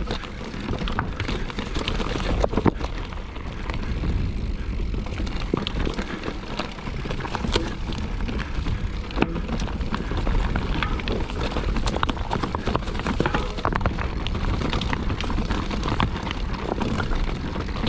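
Mountain bike riding over rough trail: steady wind rumble on the microphone with tyre noise and frequent small clicks and rattles from the bike over roots and rocks.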